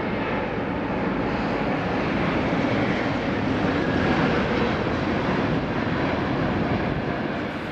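An Airbus A380's four jet engines on final approach, heard as a loud, steady rushing drone that swells slightly toward the middle of the pass.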